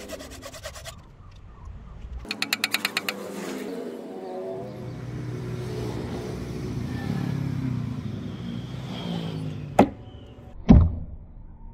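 A burst of rapid, evenly spaced tapping, then a whirring that wavers in pitch, then two sharp impacts near the end. The second impact is the loudest, a deep thud: the axe head chopping into a wooden stump.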